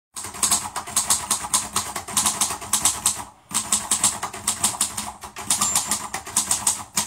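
Rapid, clattering clicks, several a second, in three runs broken by short pauses. The clatter is much like fast typing.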